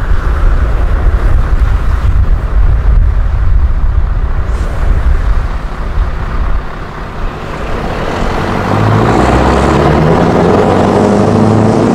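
Scania 164G 480 truck's V8 diesel with its loud, clattering exhaust ("klappert"). It gives a heavy, uneven rumble for the first six seconds or so, dips, then settles into a steady, louder engine note from about eight seconds in as the truck pulls.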